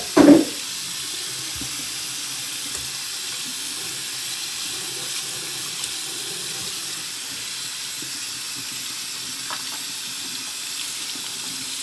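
Bathroom sink faucet running steadily, water splashing onto hands being washed under it.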